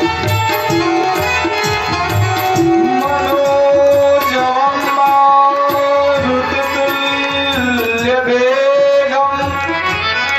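Devotional bhajan with tabla drumming under a man's sung melody of long held notes, which bend in pitch about eight seconds in. The tabla's deep strokes are plainest in the first few seconds.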